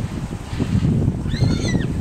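A horse gives one short, high-pitched squeal a little past halfway, rising at the start and dropping off at the end. Under it runs a low rumble of wind on the microphone and hooves moving over sandy ground.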